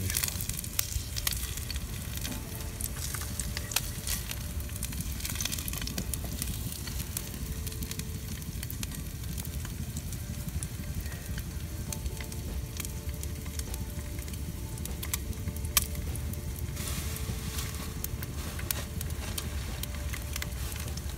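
Meat sizzling in a frying pan, fat spitting and popping in many small crackles over a steady hiss.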